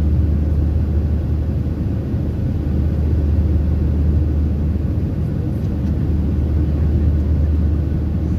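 Steady low rumble of a Boeing 737-700 airliner heard inside the passenger cabin in flight, the CFM56 engines and airflow giving an even drone with no change in pitch.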